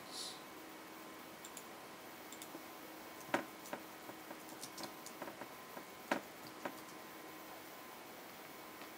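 Scattered clicks of a computer keyboard and mouse, two of them louder at about three and six seconds in, over a faint steady hiss; the clicking stops after about seven seconds.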